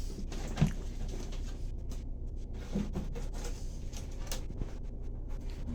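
A few light knocks and clicks, like parts being handled and set down, over a faint low hum.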